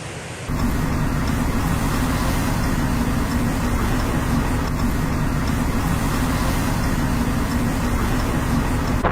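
Steady vehicle rumble with a constant low hum, starting abruptly about half a second in.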